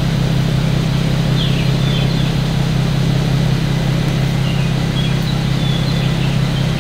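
Stock exhaust of a 2015 Infiniti Q70's 3.7 V6 at idle, a steady low hum from the twin tailpipes.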